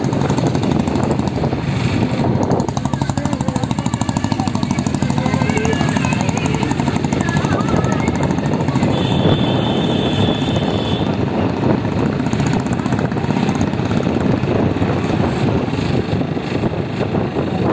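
A small vehicle engine running steadily while driving along a street, a dense, rapid, even pulsing. About nine seconds in, a steady high tone sounds for about two seconds.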